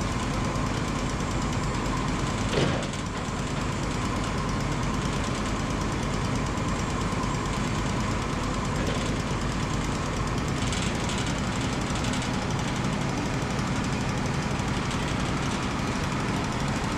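Wood-Mizer LT35 band sawmill running steadily, its engine and cutting blade making a dense mechanical din. There is a single knock about two and a half seconds in.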